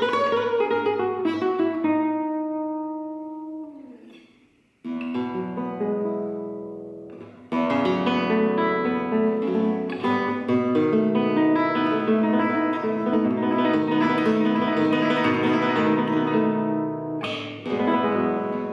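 Lazarides blanca (cypress-bodied) flamenco guitar played solo in a simple improvisation. A run of plucked notes dies away, then strummed chords come about five seconds in and again, louder, at about seven and a half seconds. A stretch of quick notes follows, and a last strummed chord rings out near the end.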